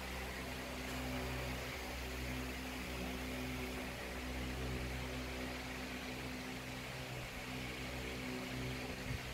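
A steady low mechanical hum with an even hiss over it, unchanging throughout.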